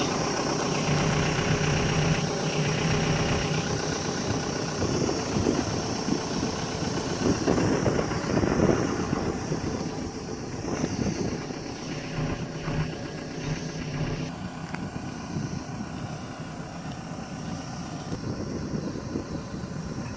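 Volvo EC140 hydraulic excavator's diesel engine idling steadily, becoming quieter about two-thirds of the way through.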